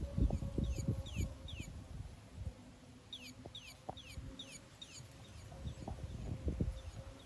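Bird toy chirping in runs of short, falling high chirps as a bobcat plays with it, with low thuds and rustling from the toy being tossed and pawed.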